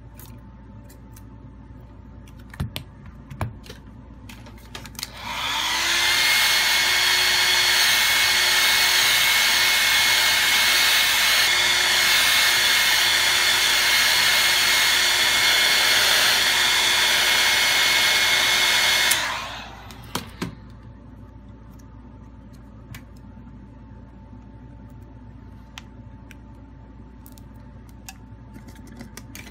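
Hot air gun blowing onto a phone's glass back to soften the adhesive. It switches on about five seconds in with a brief rising whine as the fan spins up, runs steadily for about fourteen seconds, then cuts off. A few light clicks of handling come before and after.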